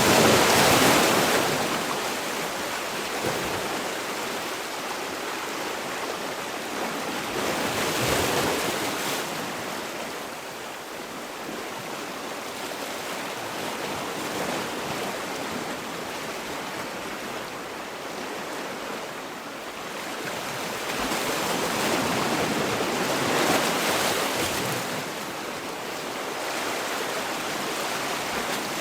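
Sea waves breaking and washing on a shore, a continuous rush of surf that swells louder at the start, again about 8 seconds in, and over several seconds later on.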